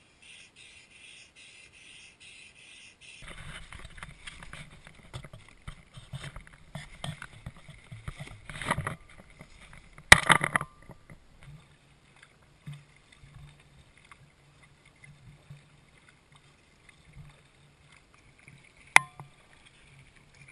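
Handling noise of a camera being carried over an inflatable canoe: irregular rustling and knocking with one sharp, loud knock about halfway through. This is preceded by about three seconds of rapid, even ticking and followed by a faint steady low hum with a single click near the end.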